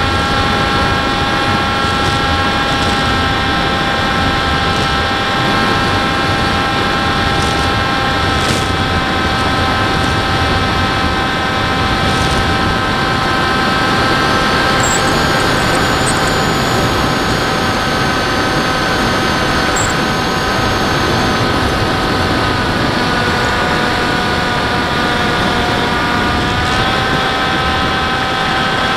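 Motor and propeller of a radio-controlled FPV model airplane heard through its onboard camera: a steady whine over a loud rush of air. Its pitch drops slightly at the start and rises a little near the end.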